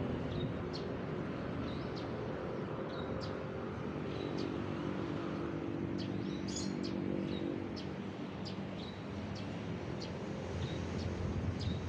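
Small birds chirping in short, repeated high calls over the low hum of a vehicle engine on the road, which swells around the middle and fades away.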